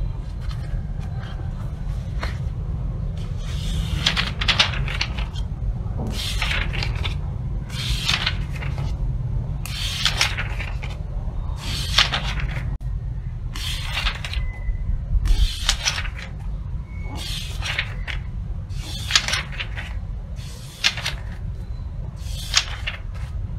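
Pages of a paperback book being turned by hand: about a dozen short papery swishes a second or two apart, over a steady low hum.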